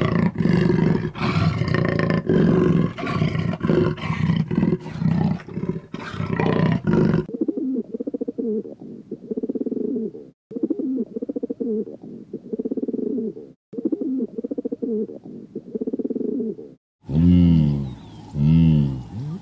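Animal growling: loud, rough growling for about seven seconds, then quieter pitched grunting calls about once a second. Near the end come louder low calls that rise and fall in pitch.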